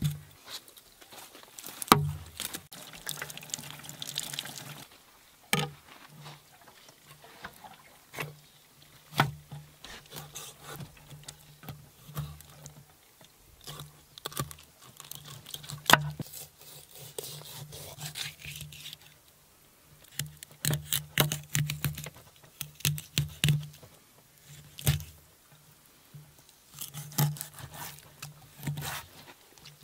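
Kitchen knife cutting through a murrel fish on a wooden chopping board: irregular sharp knocks of the blade against the board, with stretches of scraping.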